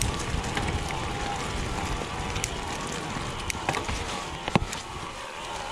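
Mountain bike rolling down a dirt and leaf-covered forest trail: steady rushing tyre noise with scattered sharp clicks and knocks from the bike rattling over bumps, the loudest about four and a half seconds in.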